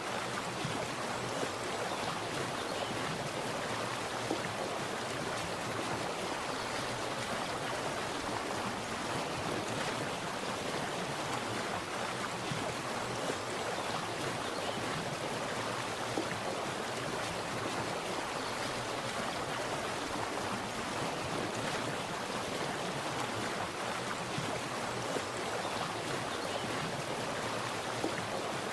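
Water splashing and running steadily in a continuous rush, with a few slightly louder splashes here and there.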